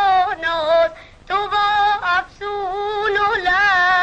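Boys' voices singing a song in a high register: long held notes with slight wavers, broken by short pauses for breath.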